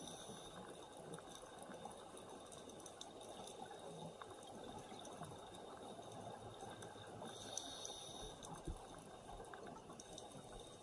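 Underwater ambience picked up by an action camera in its waterproof shell: a faint, steady wash of hiss with scattered small clicks, and a brief louder rush of hiss about seven and a half seconds in.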